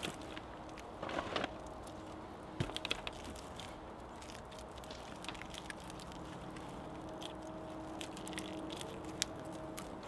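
Wet clay-and-straw daub being squeezed and smoothed by hand into a wattle wall: faint squishes and crackles, with a few louder ones about a second in and again near three seconds.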